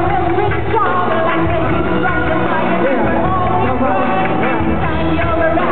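Live band playing a song: a singer's voice through a microphone over electric guitar, drum kit and hand percussion, loud and continuous.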